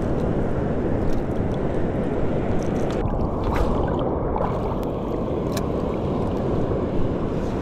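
Steady rushing of sea water surging over the reef in a strong current, heavy and deep, with a few faint ticks.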